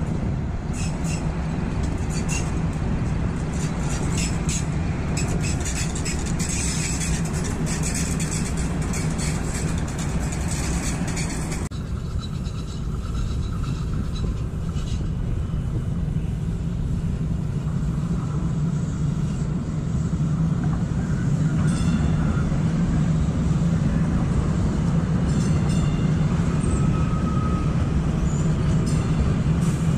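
Kinki Sharyo light rail train running on the tracks, a steady low hum with many short clicks. About twelve seconds in the sound cuts to a quieter steady hum that grows louder toward the end as another light rail train draws near.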